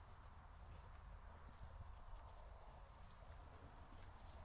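Near silence outdoors, with a faint, steady high-pitched chorus of insects.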